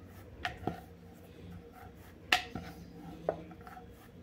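A few light knocks and taps on a wooden rolling board as a rolled-out puri is lifted and turned and the rolling pin is handled, the sharpest knock a little over two seconds in.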